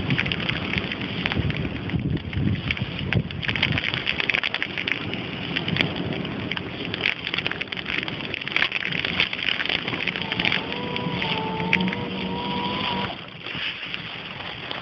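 Thunderstorm wind gusting over the microphone with a steady rushing noise and crackle. A thin wavering tone sounds about ten seconds in for about three seconds, and the noise eases near the end.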